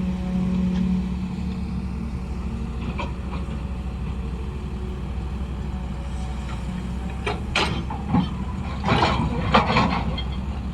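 A steady low mechanical hum, with a few light knocks about three seconds in and a run of louder clattering knocks in the last few seconds.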